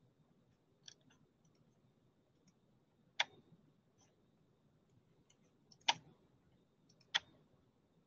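Faint computer mouse clicks: three sharp clicks spread over several seconds, the last two about a second apart, with a few fainter ticks around them.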